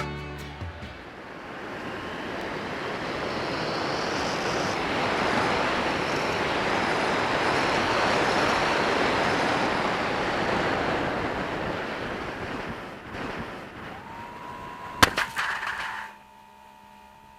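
Steady rushing wind noise over the RC plane's onboard microphone in flight, swelling and then fading away. Near the end, a sharp click is followed by a steady high tone.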